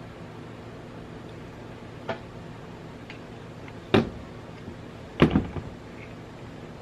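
Metal tools and valve parts handled and set down on a workbench: a light click about two seconds in, then a sharp knock, and a second later a short cluster of knocks, over a steady low hum.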